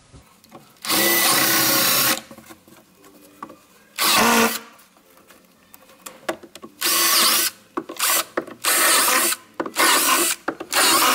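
Bosch GSR 10.8-2-Li cordless drill boring out old screw holes in a boat's laminate cockpit floor, running in separate bursts: one of about a second near the start, a short one a few seconds later, then a quick run of shorter bursts in the second half.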